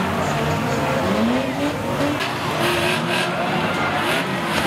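Several banger racing cars revving their engines, with pitch rising and falling, while tyres skid and squeal on the track; a few sharp knocks come about two to three seconds in.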